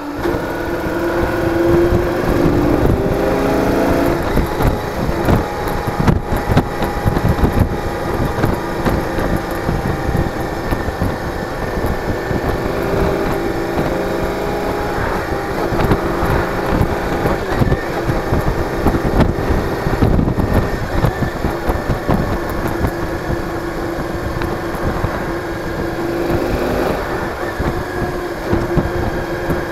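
A cruiser motorcycle's engine running under way, heard from the handlebar along with rumbling wind on the microphone. The engine note climbs over the first few seconds as the bike accelerates, then holds fairly steady.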